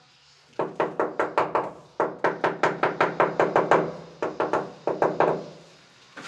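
A rubber mallet tapping a ceramic wall tile to bed it into the adhesive: quick knocks, about six a second, in three runs with short pauses between. Each knock gives a brief hollow ring.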